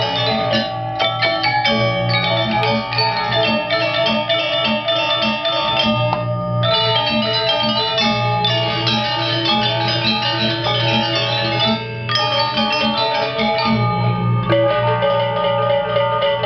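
Balinese gamelan orchestra playing: bronze metallophones ring in dense, fast runs of notes over a regular low pulse. The texture thins briefly twice, about six and twelve seconds in.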